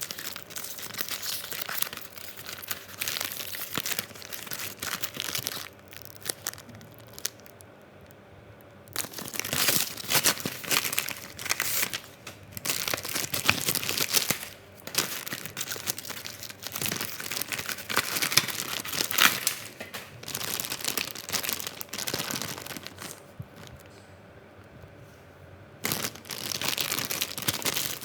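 Irregular crinkling and rustling with sharp clicks, coming in bouts broken by a few short quieter spells.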